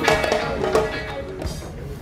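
Background music with guitar and percussion.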